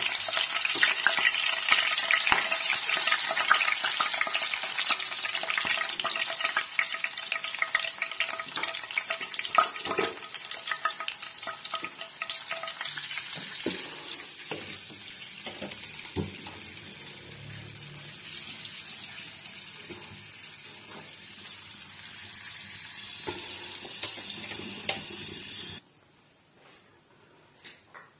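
Green chillies frying in hot oil for a tadka: a dense crackling sizzle with a spatula stirring in the pan. The sizzle fades through the second half, with a few sharp knocks, and cuts off abruptly near the end.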